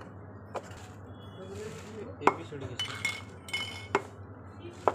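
Hard plastic high-chair seat and tubular leg pieces knocking and clicking against each other as they are handled and fitted together, with about four sharp knocks, the loudest about two seconds in.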